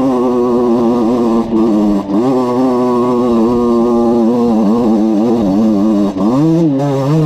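Small two-stroke engine of a Valenti RME 50cc enduro motorcycle running at high revs, its pitch wavering up and down with the throttle. It dips briefly a few times, about one and a half, two and six seconds in, before revving back up.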